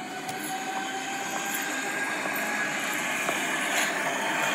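Paper cutout train cars being slid across sheets of paper on the floor: a steady rushing scrape that grows slowly louder.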